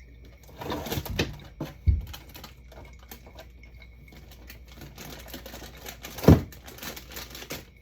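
Bottles, jars and food packages being handled and set down while a fridge is emptied: a run of light clicks and rattles, with a heavy knock about two seconds in and a louder one about six seconds in.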